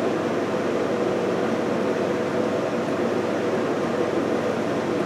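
Steady mechanical whir with a faint hum, even and unbroken, like a fan running.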